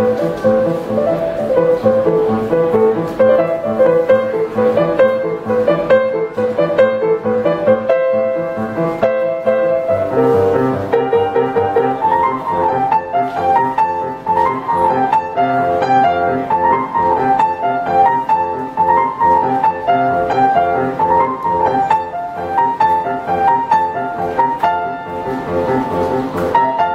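Solo grand piano being played: a continuous melody over a steady accompaniment. About ten seconds in the tune moves higher, over evenly repeated chords in the lower register.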